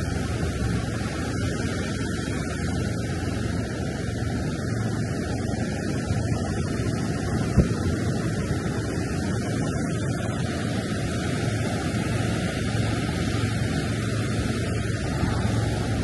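Pacific surf breaking and washing up the sand in a steady rush, with wind on the microphone. A single brief click about seven and a half seconds in.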